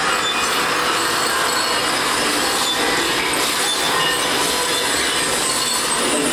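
Steady, dense rushing noise with a rumbling, grinding texture and a few faint brief tones, part of the electronic sound score of the performance.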